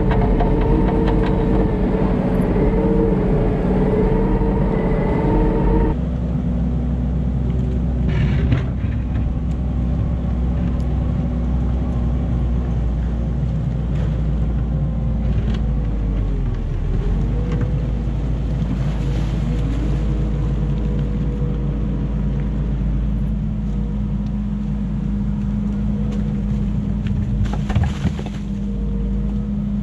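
Kubota SVL75-2 compact track loader's diesel engine running steadily under work, loud and close for the first six seconds, then quieter and farther off. Its pitch sags briefly and recovers about halfway through, and there are a couple of short knocks.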